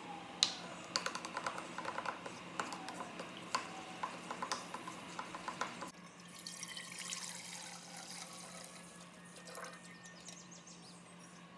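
Liquid dripping and splashing with a quick run of small clicks, giving way about six seconds in to a softer, hissing pour that fades out.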